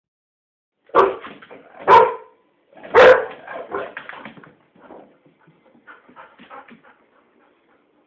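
A dog barking three times about a second apart, then a string of quieter yips and whimpers that trail off.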